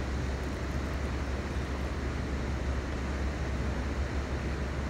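Steady outdoor background noise: a continuous low rumble with an even hiss above it, with no separate sounds standing out.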